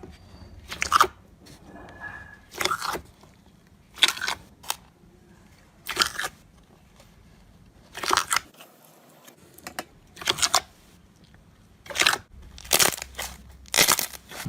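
Slime being squeezed and pressed by hand, giving about a dozen short squishes at irregular intervals of a second or two.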